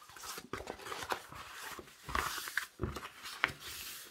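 Paper and packaging rustling and crinkling as sheets are handled and moved on a table, a string of short, irregular rustles and light taps.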